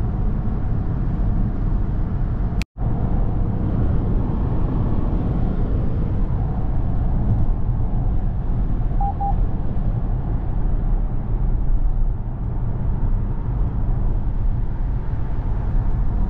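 Steady road and tyre noise of a moving car heard from inside the cabin. It drops out for an instant about three seconds in, and two short beeps sound about nine seconds in.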